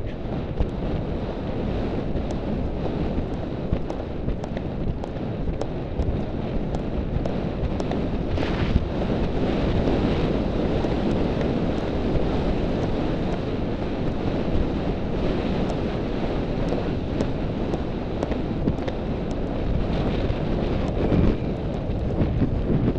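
Wind buffeting the microphone of a camera worn by a rider on a cross-country course: a loud, steady rush with scattered faint clicks.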